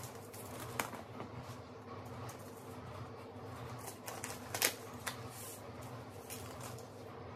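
Paper seed packet being handled and tapped over a seed tray: scattered crisp clicks and crinkles, the loudest about halfway through, over a steady low hum.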